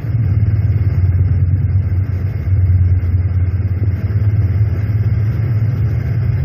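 Steady low machine-like rumble, an even drone with a faint hiss above it, with no breaks or strokes. The recorder takes it for the machinery of an underground tunnel dig heard at a borehole.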